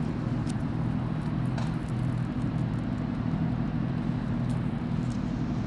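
Steady low rumble of road vehicles, with a few faint clicks over it.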